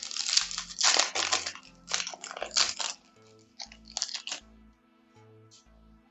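Foil Pokémon booster pack wrapper crinkling as it is handled and opened, in several loud bursts over the first three seconds and once more briefly about a second later, over quiet background music.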